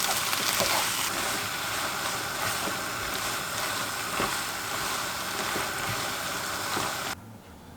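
Webfoot octopus stir-frying in a hot pan: a steady sizzle with occasional clicks of a utensil against the pan. It cuts off suddenly near the end.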